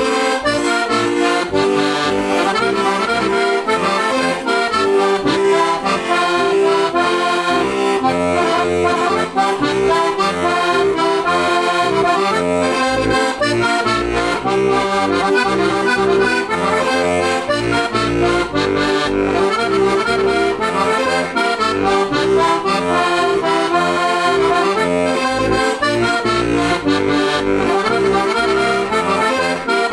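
Heligonka, a Slovak diatonic button accordion built by Juraj Krahulec, in C/F with hand-made brass reeds, playing an instrumental folk tune: melody on the treble buttons over a pulsing bass accompaniment.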